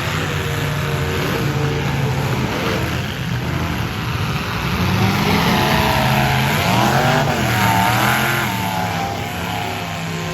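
Demolition derby cars' engines running together and revving hard, their pitch sweeping up and down, loudest in the middle few seconds.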